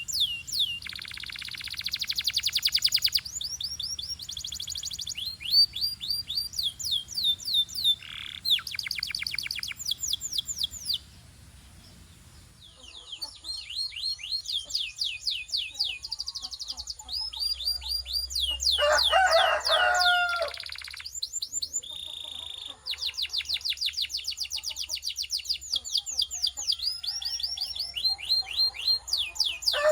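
Canary singing: fast trills of repeated high, downward-sweeping notes, rolled one after another with brief changes of phrase and a short pause about eleven seconds in. Twice, about twenty seconds in and at the end, a shorter, lower-pitched call breaks in.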